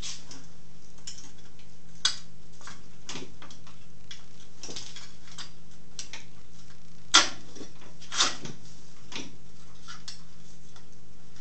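Scattered metallic clicks and knocks of a wood lathe's tool rest being slid and set on the lathe bed, with a sharper clank about seven seconds in.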